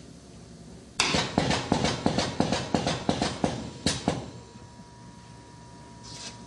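Pressure-gauge test bench clattering: a rapid run of sharp knocks, about four or five a second for some three seconds. Then a faint steady high tone sets in.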